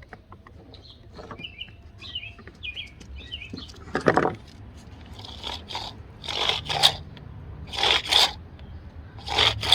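A handful of short metal scraping noises from about four seconds in, as a small engine's recoil starter housing is fitted and screwed back on.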